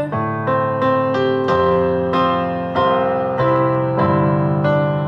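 Instrumental keyboard interlude of a slow worship song: piano-type chords struck about twice a second, with a sustained bass note under them, no singing.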